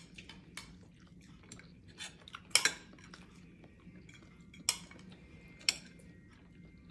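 Metal fork clinking and scraping against a dinner plate while eating: about five separate clinks, the loudest about two and a half seconds in.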